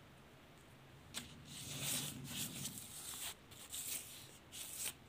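Close, irregular rustling and rubbing starting about a second in, opened by a sharp click and loudest around two seconds in, stopping just before the end.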